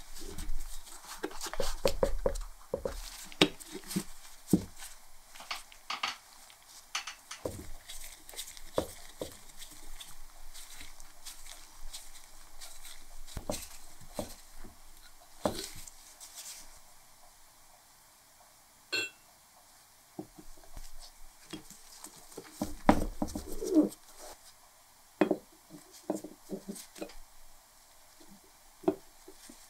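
Handling noise of a rubber gasket being fitted into a painted cast metal lamp housing by gloved hands: irregular knocks, clicks and rubbing, busiest near the start and again about two-thirds through.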